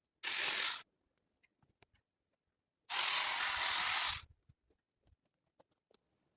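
Two bursts of steady hissing noise: a short one of about half a second, then a longer one of over a second, each starting and stopping abruptly.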